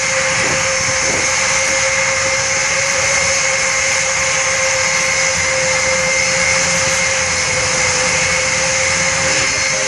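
Airbus A400M's four turboprop engines running steadily through its landing, a broad loud engine noise carrying a steady mid-pitched drone and a higher whine that hold level throughout.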